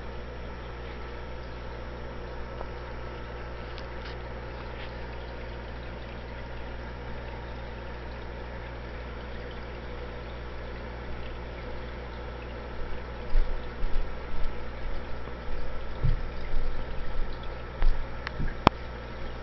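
Aquarium water and pump running with a steady low hum and a light trickle. From about two-thirds of the way through, irregular low thumps and bumps come in, and a sharp click sounds near the end.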